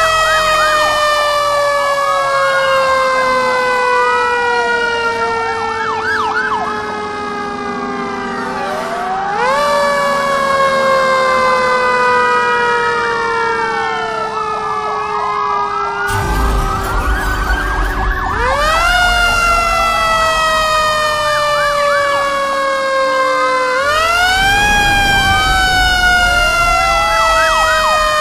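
Emergency vehicle sirens wailing loudly, several at once. One long tone falls slowly in pitch and snaps back up every several seconds, while others rise and fall quickly across it. A low rumble comes in about two-thirds of the way through and again near the end.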